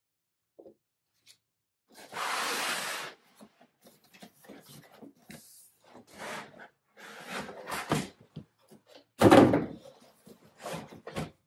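Cardboard box and plastic packaging being handled during an unboxing. About two seconds in there is a sliding scrape lasting about a second, then scattered rustles and light knocks, and a louder knock a little over two seconds before the end.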